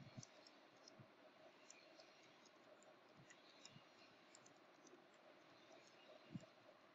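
Faint computer keyboard typing: soft, scattered key clicks, with a soft low thump near the end.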